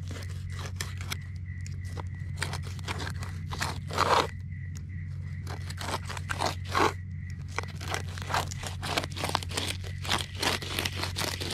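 Filleting knife scraping and slicing along the skin of a flathead fillet against a cutting board, in short irregular strokes, as the skin is cut away; two louder scrapes come about four and about seven seconds in.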